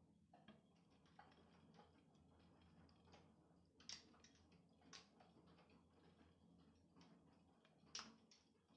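Near silence with faint, irregular ticks of rain dripping, the three loudest about four, five and eight seconds in.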